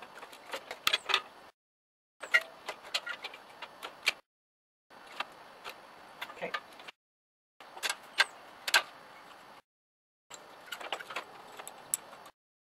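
Small metallic clicks and taps of hands working the throttle linkage and cable on a garden tractor engine's carburetor, with the engine stopped. The sound drops out to dead silence for a moment about every two and a half seconds.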